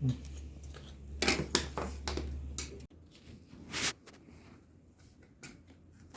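Scraping and clicking from hand work on a washing-machine control board, over a low steady hum that cuts off abruptly about three seconds in.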